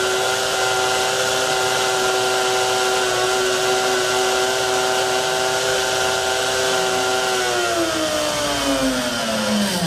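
Hamilton Beach blender's brushed motor running empty, overvolted to 250 volts from a Variac and overheating: a loud, steady high whine. About seven seconds in, the whine starts sliding down in pitch as the motor slows.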